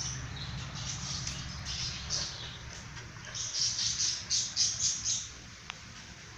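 Dachshund sniffing along the ground, a run of short, quick sniffs at about three or four a second, loudest from about halfway through.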